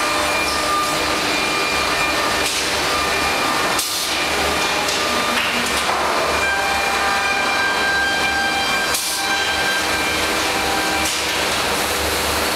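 HOMAG CNC woodworking line with its vacuum-cup panel loader in operation: steady machine noise carrying several steady whining tones over a low hum that pulses on and off. A few short, sharp noises break in, about two and a half, four, five, nine and eleven seconds in.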